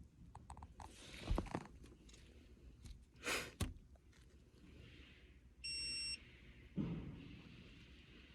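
A single short electronic beep from an OBD scan tool as it is hooked up to read trouble codes: one steady high-pitched tone about half a second long, a little past the middle. Short handling rustles and knocks come before it and a dull thud right after.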